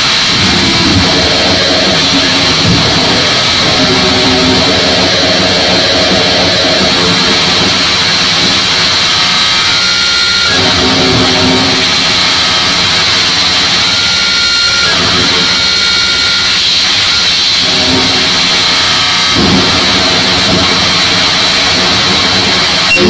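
Harsh digital noise music played live: a loud, dense wall of distorted noise with a steady high whine, and pitched droning layers underneath that cut out and come back abruptly several times.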